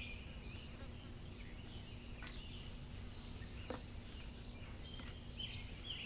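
Outdoor background: birds giving a few short chirps over a steady low rumble, with two faint clicks.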